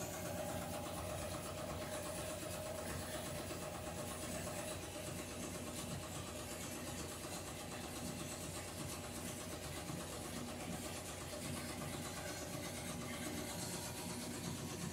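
Top-loading washing machine running with its lid closed: a steady mechanical running noise that holds even throughout, with a faint tone in the first few seconds.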